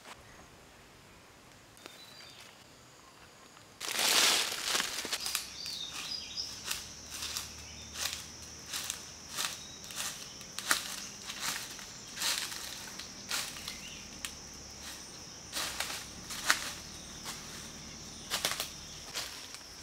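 Footsteps crunching through dry leaf litter, about two steps a second, starting a few seconds in. A steady high-pitched insect drone runs behind them.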